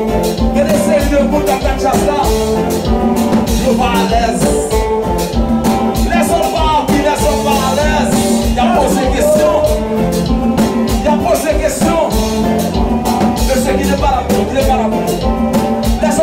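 Kompa band music played loudly, with a steady beat and singing.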